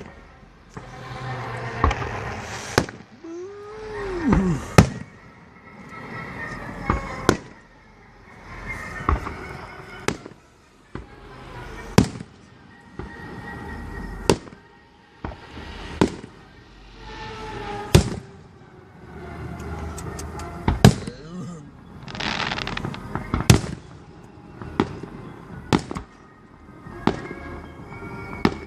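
Fireworks display: a string of sharp booms from aerial shells bursting, one every one to two seconds, with noisy stretches between the bursts.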